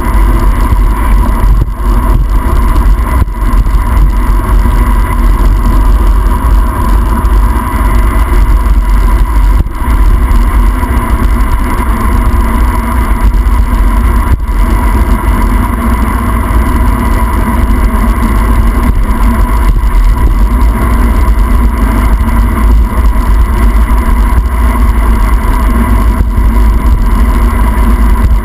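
Loud, steady wind rush buffeting the microphone of a handlebar camera on a road bicycle descending at speed, with a steady hum running underneath.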